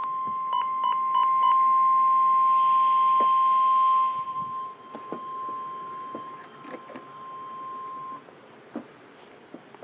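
Emergency alert warning tone, a single steady high-pitched tone, opened by four short beeps. It drops in level about four seconds in and cuts off about eight seconds in. It signals an alert for a Special Marine Warning.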